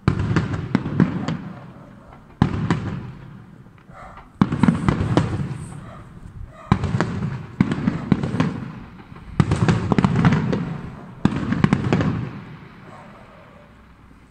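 Aerial fireworks shells bursting one after another: about seven sharp bangs, each followed by a rolling rumble and crackling, dying away near the end.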